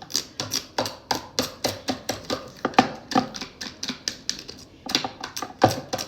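A quick run of light, sharp taps, about four a second, with a brief pause a little after four seconds in, like a dust-absorber sticker or fingertips dabbing at a small camera screen.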